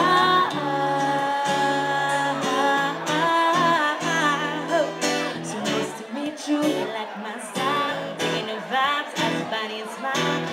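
A woman singing live to her own strummed acoustic guitar, holding long notes in the first few seconds, then shorter sung phrases over steady strumming.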